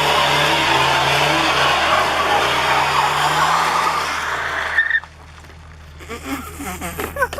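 Jeep Cherokee XJ driving through mud: the engine runs under a loud rush of spinning tyres and mud. The sound cuts off suddenly about five seconds in.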